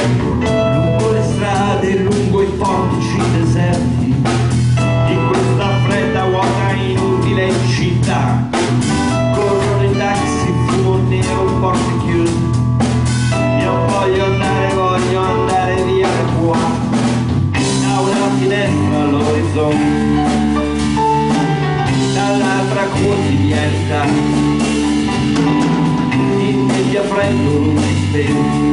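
Live band playing a loud instrumental passage on electric guitar, electric bass and drum kit, in a bluesy rock style. About two-thirds of the way through, the bass line changes to separate, stepping notes.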